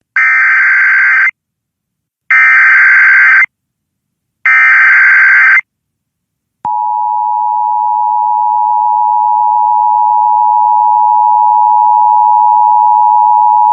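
Emergency Alert System broadcast tones: three loud bursts of SAME digital header data, each about a second long and about a second apart, then about a second later the steady two-note EAS attention signal starts and holds. This opens a National Weather Service tornado warning.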